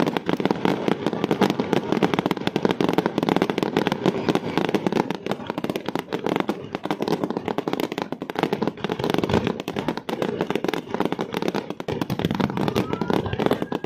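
Fireworks going off in rapid succession: a dense, unbroken crackle of many small pops and bangs, many per second.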